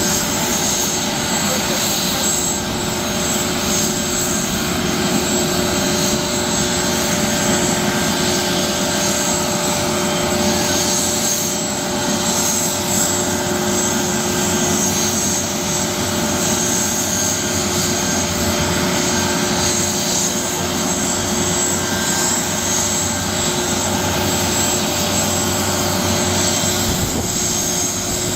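Police helicopter's turbine engines and rotor running steadily, with a high whine held on several fixed tones over the rotor noise.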